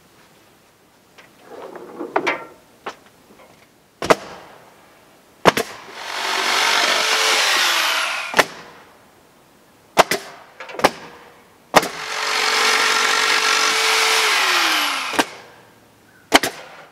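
A hand-held power tool's motor runs twice, for about two and a half seconds and then about three and a half, each time winding down with a falling pitch when it stops. Sharp knocks and clacks come between the runs.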